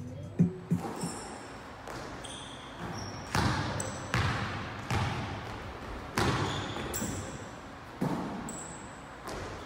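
Basketball bouncing on a hardwood gym floor, a hard bounce about every second with a hall echo after each, and sneakers squeaking on the boards between the bounces.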